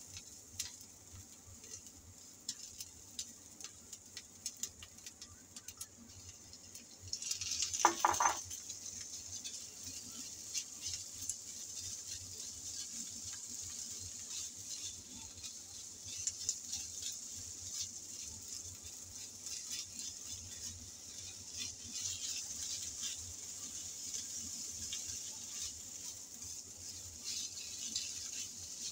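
Chopped onion sizzling quietly in a nonstick frying pan, with the scrape and tap of a plastic spatula stirring it. About eight seconds in there is a short louder sound as ground pork goes into the pan, and the sizzling then grows stronger and stays steady while the meat and onion are stirred and broken up.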